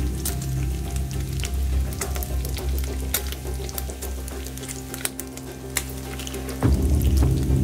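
Hot oil sizzling and crackling steadily as battered dough patties deep-fry in a stainless steel wok.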